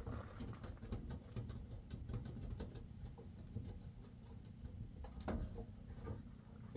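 Light, irregular small clicks and taps of hand work on a pickup's driver-side door handle as it is fitted back in its new position, with a slightly louder click about five seconds in.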